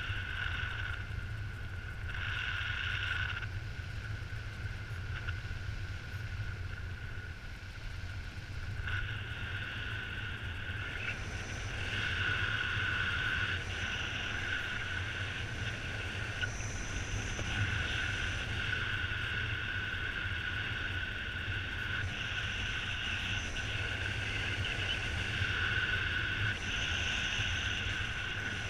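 Airflow of paraglider flight buffeting the microphone as a steady low rumble. Over it, a high steady tone comes and goes in stretches lasting from about a second to several seconds.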